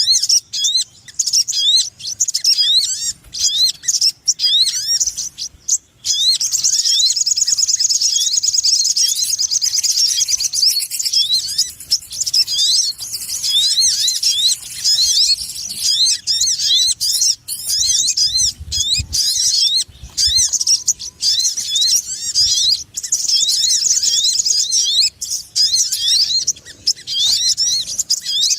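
Lure recording of sogon birds calling noisily: a dense, unbroken chatter of many short, rising chirps, with brief dropouts here and there.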